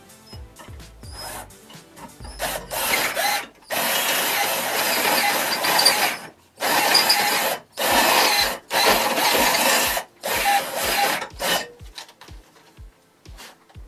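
Electric drill run in about six bursts of one to two seconds, cutting oblong adjustment slots into a metal bracket; the longest run is about two seconds, a few seconds in.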